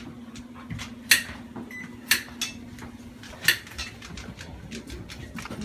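Kitchen utensils and cookware clattering: several sharp knocks and clinks spaced about a second apart, over a steady low hum.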